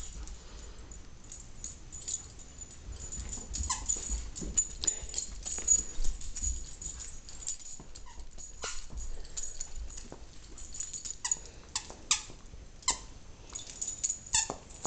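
Two German Shepherds chewing plush squeaky toys, the squeakers squeaking in many short, sharp, high-pitched squeaks at an irregular pace.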